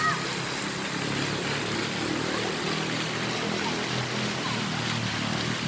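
Steady rushing and splashing of fountain water jets, with music playing underneath.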